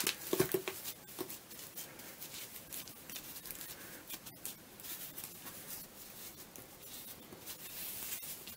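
Gloved hands pressing and smoothing damp modelling concrete into a small plastic mould: faint scraping and rustling, with a few soft knocks in the first second or so.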